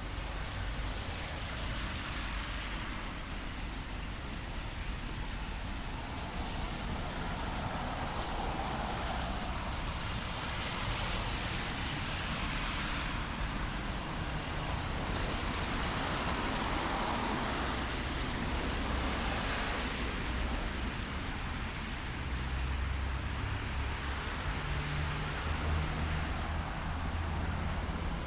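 Cars passing on a wet street, their tyres hissing in two long swells, over steady rain ambience; a low engine hum comes in near the end.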